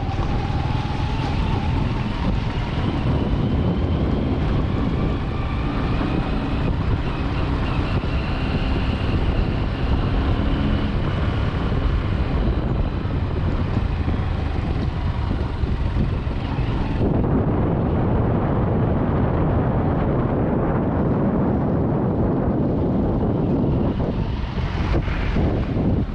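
A vehicle engine running steadily under heavy wind noise on the microphone. The sound turns duller partway through.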